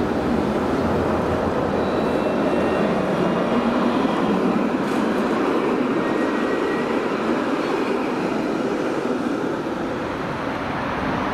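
Alstom Citadis 402 electric tram rolling past on street track: a steady rumble of wheels on rail that swells slightly as it goes by, with a faint high whine while it passes.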